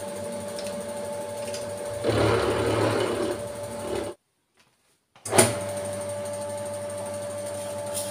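Vertical milling machine running steadily with an end mill cutting the edge of a metal plate, the cutting noise louder and rougher for about a second and a half starting two seconds in. The sound cuts off about four seconds in, and after a second of silence the machine starts again with a brief surge and runs steadily, set up with a drill chuck for drilling guide holes.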